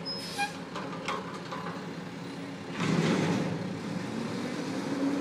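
Garbage truck engine running, getting louder about three seconds in with a burst of noise, then staying louder as the truck moves off.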